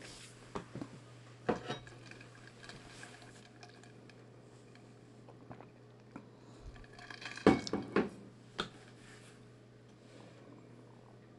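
Handling noise of jute twine being wound around a cut-off plastic pill bottle top: soft rustling with a few sharp plastic clicks and taps, a couple about a second and a half in and a louder cluster about two-thirds of the way through, over a steady low hum.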